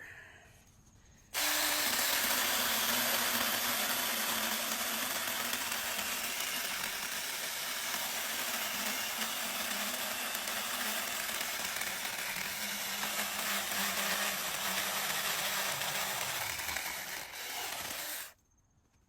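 Cordless mini chainsaw starting about a second in and cutting a piece of wood: the chain rasps through the wood over the steady hum of its electric motor, which drops a little in pitch under load. Near the end the motor winds down and stops.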